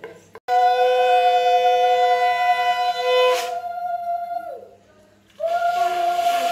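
Conch shell (shankha) blown in a long steady note of nearly four seconds, then after a short breath a second note that starts near the end and keeps sounding.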